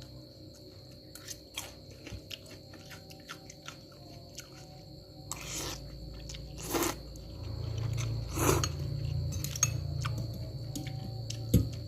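Close-miked chewing of fried instant noodles, with many small mouth clicks and a few louder noisy mouth sounds in the second half.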